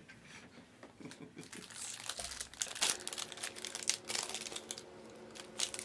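Foil trading-card pack wrappers crinkling as card packs are handled and opened by hand. The rustling grows louder after about two seconds.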